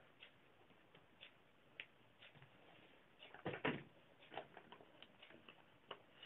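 Near silence with faint scattered clicks and a louder pair of soft knocks about three and a half seconds in.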